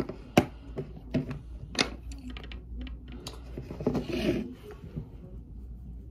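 Makeup being handled on a table: several sharp clicks and taps from a compact palette and a makeup brush, with a brief soft brushing rustle about four seconds in.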